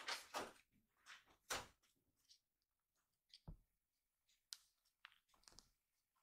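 Faint, short rustles and light taps from a kitten moving over a vinyl floor mat and batting at a charging cable; a few slightly louder rustles in the first two seconds, then scattered soft clicks.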